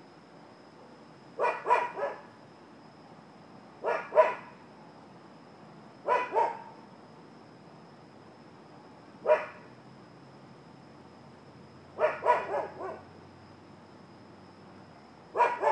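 Dog barking in short runs of two to four barks, a new run every two to three seconds, with a faint steady high-pitched whine underneath.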